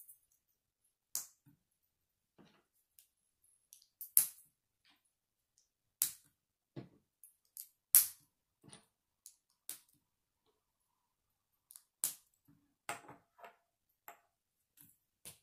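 Plastic Lego bricks clicking and snapping as they are pressed together by hand, in irregular single clicks with the loudest about eight seconds in. Near the end a few pieces are tapped down on a wooden tabletop.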